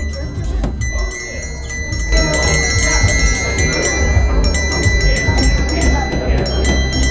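Electronic ambient music with bright chiming, bell-like tones over a steady low bass. It grows louder and busier about two seconds in.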